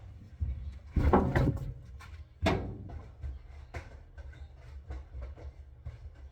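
Household knocks and clatter: a cluster of bumps about a second in, a sharp knock about two and a half seconds in and lighter taps after, over a low rumble.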